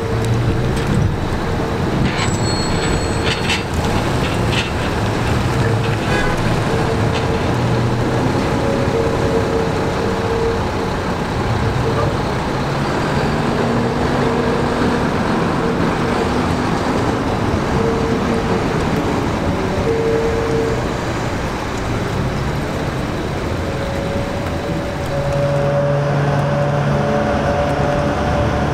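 Subway cars rolling slowly under tow on freight track: a steady rumble of wheels and running gear. Near the end the diesel engine of a switcher locomotive runs with a steady low hum.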